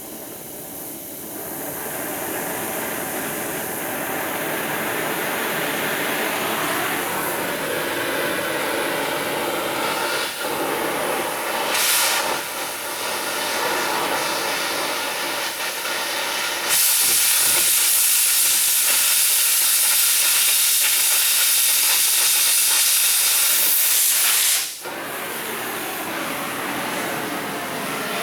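Angle grinder grinding the rough, freehand-cut edge of steel C-channel, a steady hissing grind. It gets louder about two-thirds of the way in for several seconds, then drops back.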